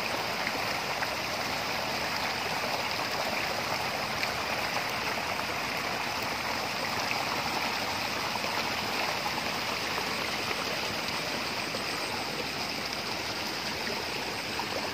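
Steady rush of running water, an even, unbroken sound with no distinct splashes or knocks.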